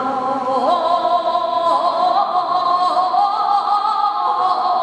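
A woman singing a saeta, the flamenco-style Holy Week song sung unaccompanied, in long held notes ornamented with wavering slides in pitch.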